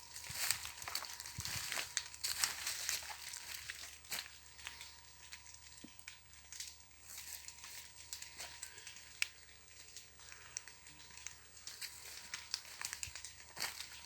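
Campfire crackling with irregular sharp pops, together with close rustling that is densest in the first few seconds and then thins out to scattered crackles.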